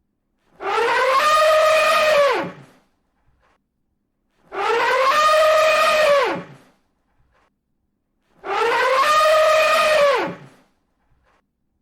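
Elephant trumpeting: the same call three times, about every four seconds, with silence between. Each call lasts about two seconds, rising in pitch, holding, then sliding down at the end.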